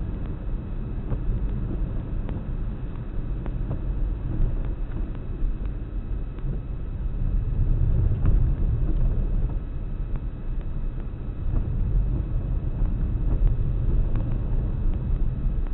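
A car driving, heard from a camera mounted in the car itself: a low, steady rumble of engine and tyres on the road, which grows a little louder about halfway through.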